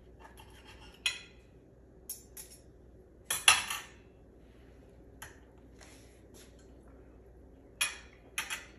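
Knife and fork clinking and scraping against a plate as chicken is cut, in a few short separate strokes, the loudest about three and a half seconds in.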